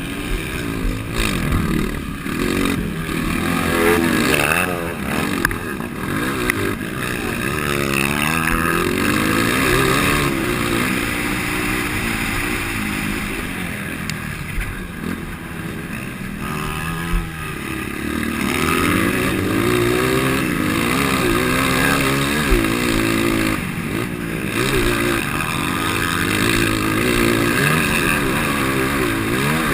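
A 230 cc four-stroke motocross bike running hard, its engine pitch climbing and falling over and over as it is revved and shifted. The bike has a stock engine breathing through an aftermarket exhaust header and tip.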